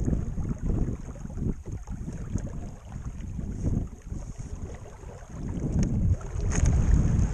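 Wind buffeting the microphone of a camera mounted on a small sailing skiff, in uneven gusts that grow heavier about six seconds in, with water washing along the hull.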